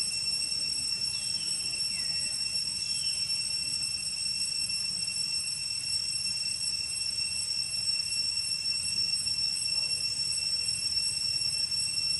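Steady high-pitched whine of insects, typical of a cicada chorus, holding one unbroken tone. Two brief falling chirps come over it between about one and three seconds in.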